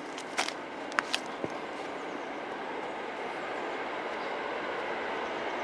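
A train approaching on the line, heard as a steady rumble and hiss of the rails that slowly grows louder. A few sharp clicks come in the first second and a half.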